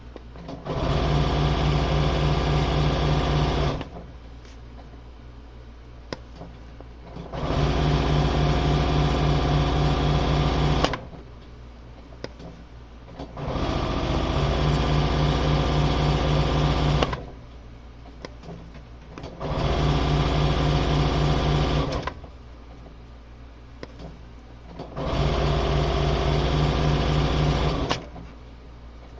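Electric sewing machine running in five separate runs of about three to four seconds each, starting and stopping as the foot pedal is pressed and released, with quieter pauses between runs. Each run holds a steady speed.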